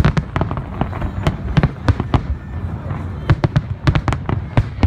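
Aerial firework shells bursting in rapid, irregular succession: several loud bangs a second over a continuous low rumble from the barrage.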